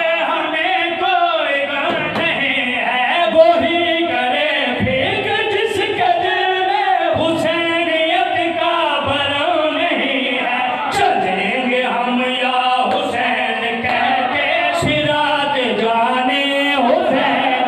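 A zakir's unaccompanied sung recitation of a verse, a man's voice chanting in long, bending melodic lines, amplified through a microphone.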